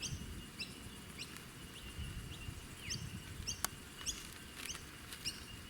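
Faint, scattered short high chirps of small birds, with a thin steady high tone underneath and a single sharp click about three and a half seconds in.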